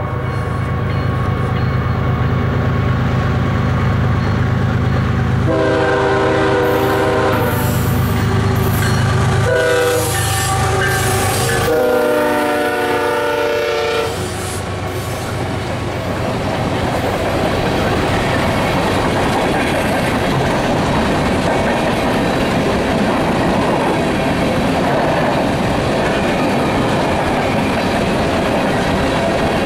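Lead GE ES44AC locomotive of a BNSF coal train sounding its horn for a level crossing: a long blast, a short one and a final long one that drops in pitch as the locomotive passes, over the low rumble of the diesel engines. Then the empty coal gondolas roll by with steady wheel clatter.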